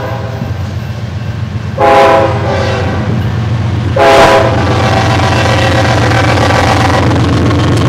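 Diesel locomotive air horn sounding a chord of several notes in separate blasts, about two seconds in and again about four seconds in, over the steady low rumble of a freight train.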